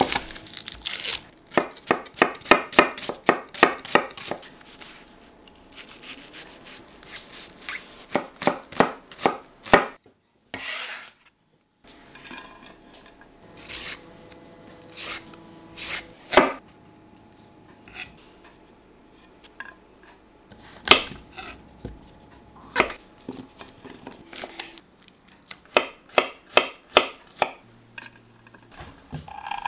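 Chef's knife chopping onion and carrot on a bamboo cutting board: runs of quick, sharp knocks of the blade on the wood, separated by pauses, with a brief silence about ten seconds in.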